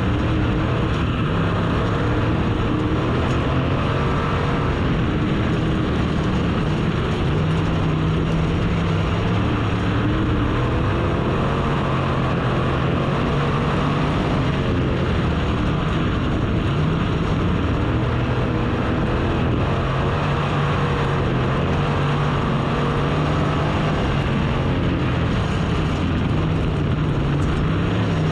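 Race car engine running hard at racing speed. Its pitch rises and falls every few seconds as the revs change.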